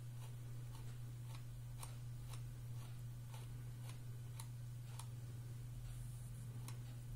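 Regular light ticking, about two ticks a second, over a steady low hum.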